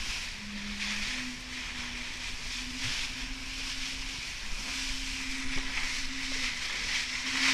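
Water rushing and spraying past the hull of a small sailing keelboat sailing fast downwind, with wind on the microphone. A steady low hum sounds under the hiss, dipping in pitch briefly about half a second in.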